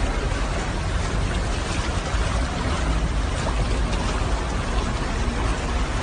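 Steady rushing wash of storm water, heavy rain and flowing floodwater, with a strong low rumble underneath.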